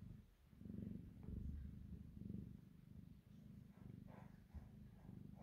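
Mother cat purring softly while her kittens nurse, a low rumble that swells and fades with each breath.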